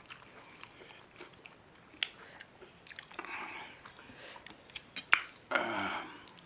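Close-up chewing and mouth sounds of someone eating, with scattered sharp clicks, the loudest about five seconds in, then a short, louder rush of noise near the end.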